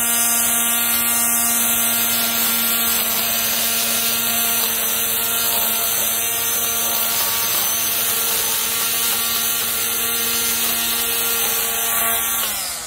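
Wild Badger Power 40V brushed-motor cordless string trimmer running at a steady high whine in edging position, its line cutting grass along the edge of a wooden board. The motor winds down near the end as the trigger is let go.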